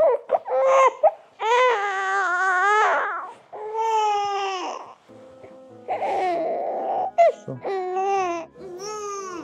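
Baby crying in a series of long, wavering wails, which the parents take for hunger after only a small feed.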